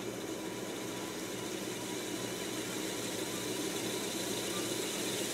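Technics RS-1520 reel-to-reel tape deck fast-winding its tape, the reels and motors making a steady whir that grows gradually louder as they run.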